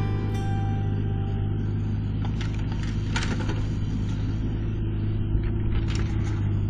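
Steady low drone of a mini excavator's diesel engine running while it digs, with a few short clicks about halfway through.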